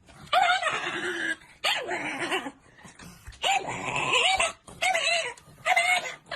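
A dog vocalizing in a run of five drawn-out whining yelps, each rising then falling in pitch, with short pauses between them.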